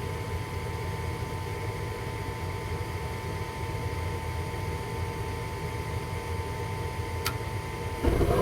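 Gas furnace's exhaust (draft inducer) motor running steadily with a high whine, while the hot surface igniter glows before ignition. A click comes about seven seconds in, and near the end the burners light with a sudden, louder rush.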